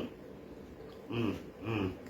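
A man's two short closed-mouth "mm" hums of enjoyment while eating, a little after a second in and again near the end.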